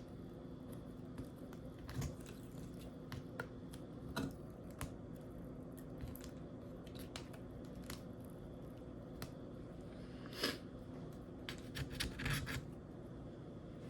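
Scattered small clicks, taps and scrapes of hand tools and small parts being handled on an opened MacBook Pro during a speaker replacement, over a steady low hum. A short cluster of louder clicks comes about ten seconds in and again near the end.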